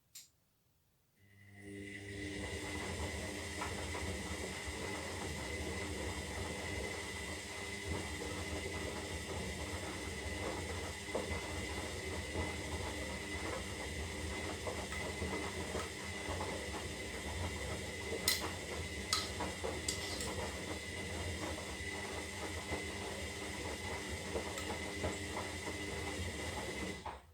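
Zanussi Lindo 300 washing machine's motor starting about a second in and running steadily with a high whine over a low hum, then stopping abruptly near the end; a few sharp clicks two-thirds of the way through.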